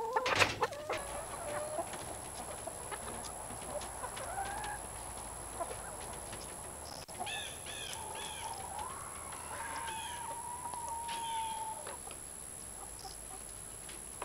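Backyard chickens clucking and calling, with a knock right at the start, a quick run of short calls about seven seconds in, and one long drawn-out call lasting about three seconds near the middle.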